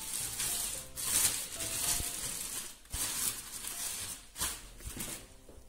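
Thin clear plastic bags crinkling and rustling in repeated bursts as balls of sablé dough wrapped in them are handled.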